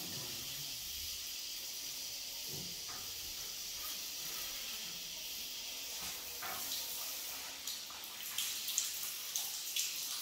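Handheld shower head spraying water onto a glass shower door and tiled floor as a rag wipes the glass, a steady hiss of spray. A run of short sharp sounds comes in near the end.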